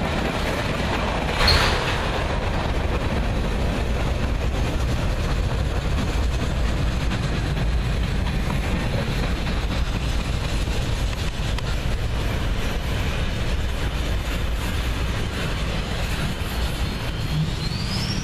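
Freight train cars rolling past on the track: a steady, loud rumble of wheels on rail, with one short, louder burst about a second and a half in. A rising whine begins near the end as the last car passes.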